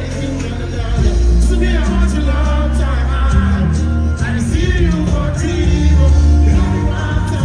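Live dance music played loud over a concert sound system, with a deep bass line and a steady drum beat. A voice sings over it into a microphone, clearest in the middle.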